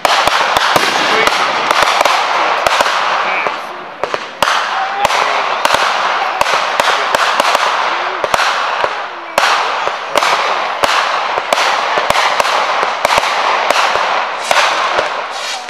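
Fireworks going off without a break: a steady hissing crackle with sharp bangs several times a second, easing briefly twice.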